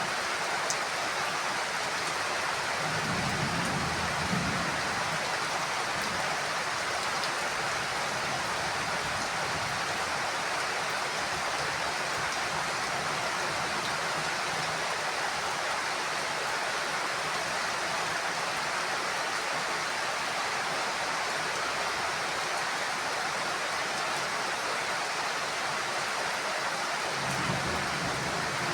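Heavy rain falling steadily on a house roof, a dense even hiss, with brief low rumbles about three seconds in and near the end.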